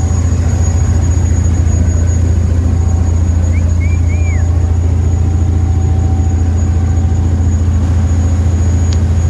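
Boat engine running steadily under way: a loud, even low drone, with the rush of water churning in the wake.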